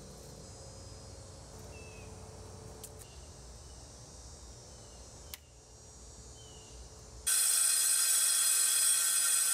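Quiet outdoor background with a few faint chirps. About seven seconds in, a circular saw cuts in suddenly and loudly, ripping the top off a laminated display cabinet.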